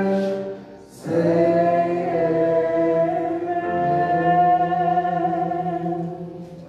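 Gospel singing: a sung note breaks off about half a second in, then after a short pause a long note is held for about five seconds and fades near the end, closing the song's refrain.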